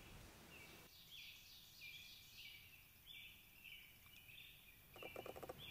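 Faint chorus of insects chirping: short high pulses repeating about twice a second, with a brief soft rustle near the end.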